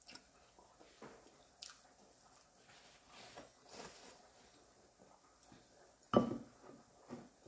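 Soft, wet clicks of roast chicken being pulled apart by hand, a short paper-napkin rustle, then a knock of a plastic spoon against a ceramic bowl about six seconds in, the loudest sound, with a smaller knock a second later.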